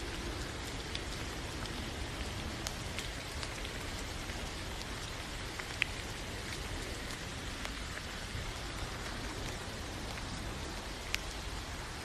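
Steady rain falling, with single drops ticking sharply here and there; the loudest drop hits come about six seconds in and again near the end.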